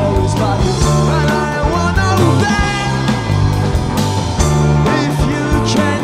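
Rock band playing live: a drum kit with steady beats and cymbal crashes, electric bass and electric guitars, with a man singing over them.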